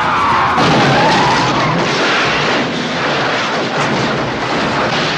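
Movie car crash: a tyre squeal falls in pitch, then about half a second in a loud crash hits and carries on as a long rumbling clatter of impacts as the car overturns.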